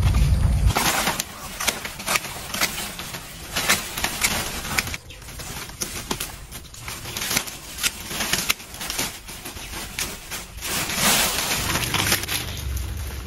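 Dry dead leaves and stalks crackling and rustling irregularly as they are pulled from plants and handled by hand. A brief loud low rumble cuts off within the first second.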